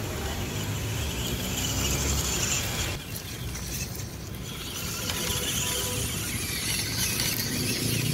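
MN99S and WPL C24 scale RC 4x4 trucks driving across grass, their small electric motors and gearboxes running, with a brief drop about three seconds in.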